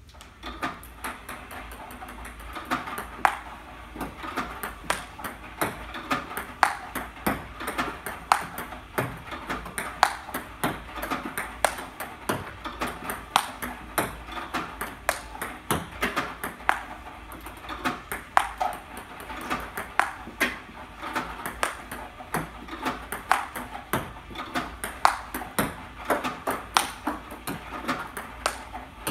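Table tennis drill: an iPong Pro robot firing balls that are returned with a four-star Diadora paddle, making a quick, even run of sharp plastic clicks, several a second, as balls strike the table and the paddle.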